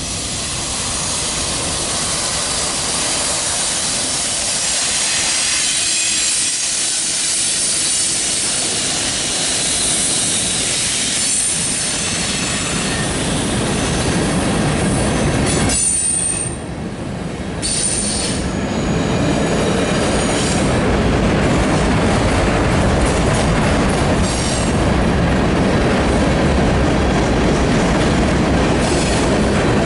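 Freight train running past, a steady loud rumble and rattle of the cars with rail clickety-clack. High-pitched wheel squeal comes and goes in the middle, and the low rumble grows heavier in the second half.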